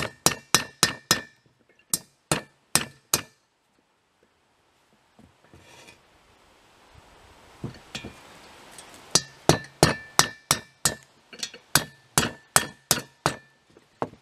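Repeated sharp metallic taps with a short ringing note: a long metal rod knocking against the broken wooden stub inside a steel shovel socket to drive it out. A quick run of about nine taps, a pause with faint scraping, then a longer run of about fifteen taps, roughly three a second.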